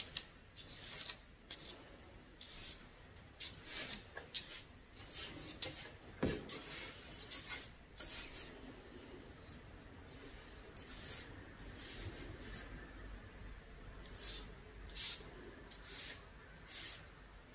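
Marker pen drawing thick letters on a paper poster: short rubbing strokes in irregular bunches with pauses between. A single knock about six seconds in.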